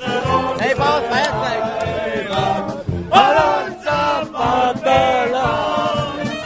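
A group of men singing a chant together in celebration, as a loud crowd chorus.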